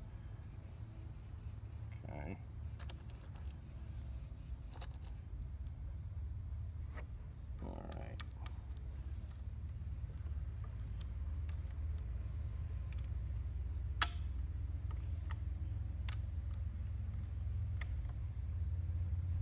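Steady high, even chorus of insects in summer grass over a low rumble, with a single sharp click about three-quarters of the way through.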